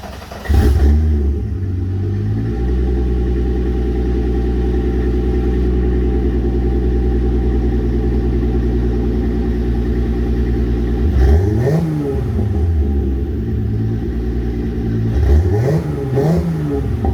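VW VR6 engine catching from cranking about half a second in, flaring briefly and settling into a steady idle. Later it is blipped three times, once around the middle and twice near the end, each a short rise and fall in revs.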